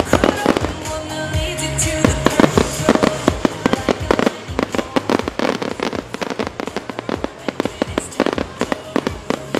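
An aerial fireworks display: shells bursting and crackling in rapid, overlapping bangs and pops, with music playing alongside, louder in the first few seconds.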